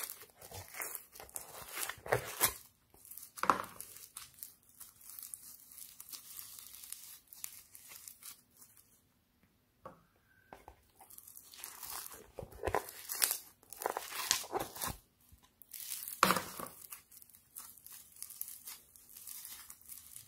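Foam-bead slime (floam) squeezed and stretched by hand, giving irregular crackling and squishing, with short pauses about nine and fifteen seconds in.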